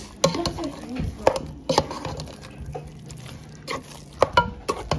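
Metal spoon stirring mashed potatoes and milk in a bowl, with irregular sharp clinks as the spoon knocks against the bowl.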